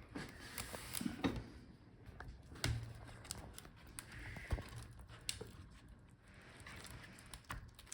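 Scattered light clicks and scrapes from hands and a small tool working a laptop's internal cable connectors.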